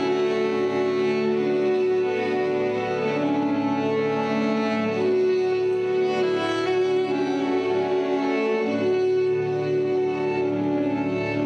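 Slow instrumental music on bowed strings, violin and cello, playing long held notes with a slight vibrato.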